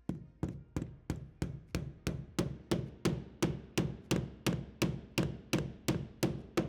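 Hammer driving nails into a wooden skirting board, a steady run of sharp blows at about three a second.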